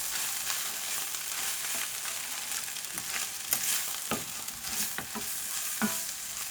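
Seafood and vegetable filling sizzling in a frying pan while it is stirred, with a utensil scraping and tapping the pan now and then.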